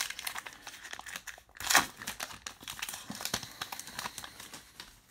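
A baseball card pack's wrapper crinkling and tearing open, with cards being handled: a run of irregular crackly rustles, the loudest about two seconds in.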